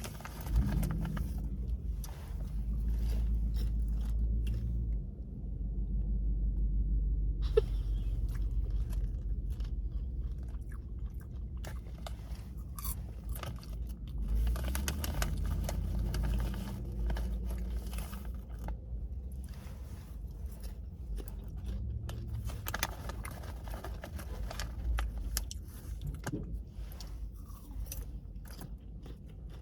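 A person chewing and crunching sweet chili flavoured popcorn, with many short crisp crunches, over a low steady rumble.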